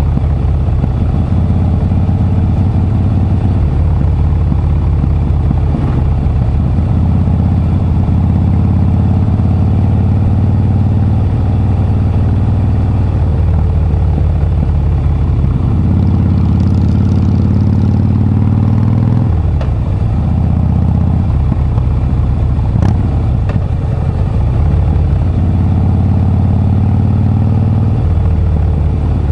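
Harley-Davidson Breakout's V-twin engine running loud under way, its note rising over stretches of several seconds as the throttle opens and dropping back a few times.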